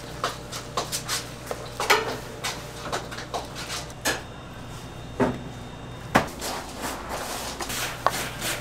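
Gloved hands squeezing and slapping bread slices in a bowl of thick batter: irregular wet squelches and slaps, several to a second, with a low steady hum behind.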